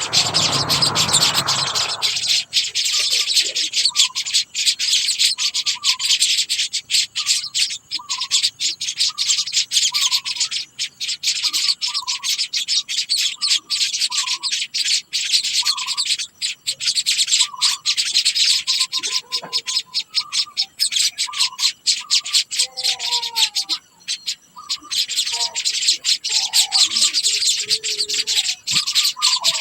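Birds calling: a short call repeated about once a second over a dense, rapid, high-pitched chirring, with other, more varied calls joining in the second half. A brief low rumble sounds at the start.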